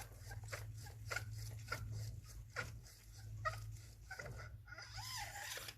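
Faint clicks and light knocks from a metal lightsaber hilt being handled and opened to reach its chassis, with a few short squeaky sounds, over a steady low hum.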